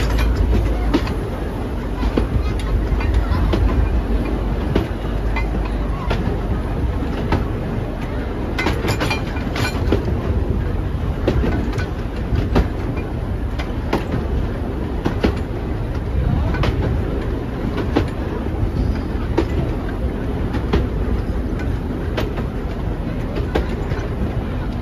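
Tourist-train carriage running along the track, heard from its open doorway: a steady low rumble with sharp clacks of the wheels over the rail joints about once or twice a second.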